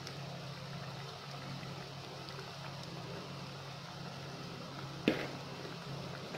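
Gram-flour pakoras deep-frying in hot oil in a karahi: a steady sizzle and bubbling over a low steady hum. A single sharp knock about five seconds in.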